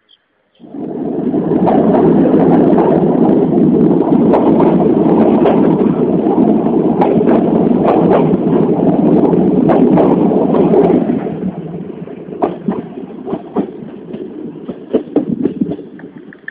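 Moving passenger train heard from a window: a loud steady rumble of wheels on rails with sharp clacks running through it. It starts suddenly under a second in and eases off about eleven seconds in, the clacks carrying on more thinly.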